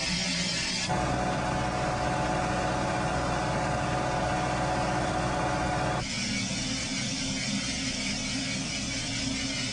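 A train's engine running steadily. About a second in the sound switches abruptly to a whine with several steady tones, then switches back to a hissing hum about six seconds in.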